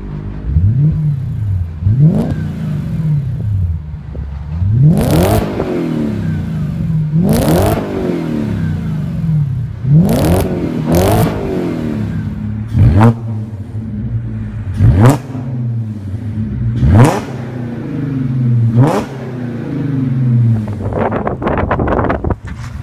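Audi S4 exhaust revved from idle in about ten sharp throttle blips, each rising quickly and dropping back to idle. The first half is a B6 S4's 4.2-litre V8 through a Milltek non-resonated cat-back exhaust. From about halfway it is a B8 S4's supercharged 3.0-litre V6 through a custom exhaust.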